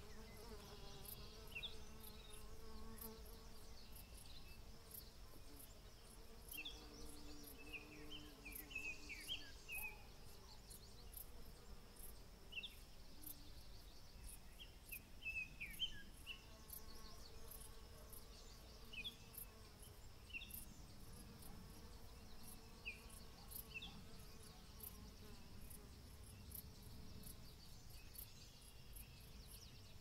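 Bees buzzing, a faint hum that swells and fades as they fly past, with short bird chirps scattered throughout and crickets ticking steadily at a high pitch, about two a second.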